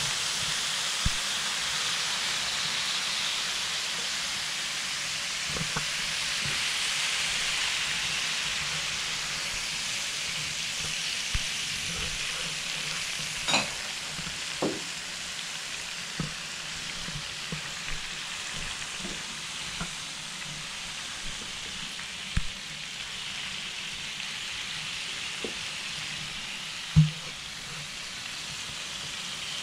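Whole lobsters sizzling on the hot plate of a George Foreman electric grill: a steady frying hiss, strongest over the first several seconds as liquid is poured onto the plate, then settling. Scattered small pops and clicks run through it, with one sharper knock near the end.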